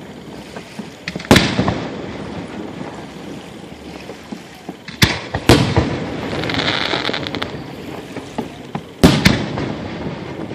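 Fireworks bursting: a sharp bang about a second in, two more around the middle, and a close double bang near the end, with a hissing crackle after the middle pair and rolling rumble between the bursts.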